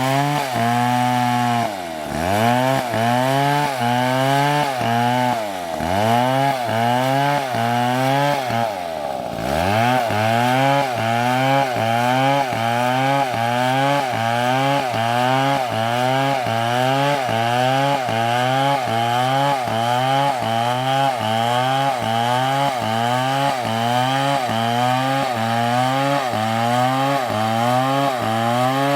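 Two-stroke chainsaw cutting into a tree under load, its engine note wavering up and down about twice a second as the bar works through the wood. The engine bogs down briefly about two and five seconds in, and most deeply about nine seconds in, then recovers.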